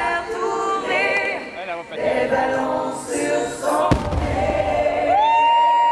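Choir music with a firework bang about four seconds in. A single high sung note swells up and is held near the end.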